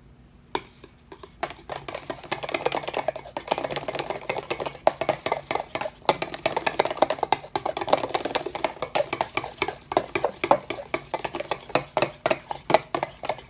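Frosting being stirred in a bowl: a utensil scrapes and clicks rapidly and unevenly against the bowl, starting about half a second in, as blue food gel is mixed through the frosting.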